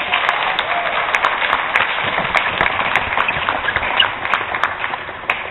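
Audience applauding: many hands clapping together, dying down near the end.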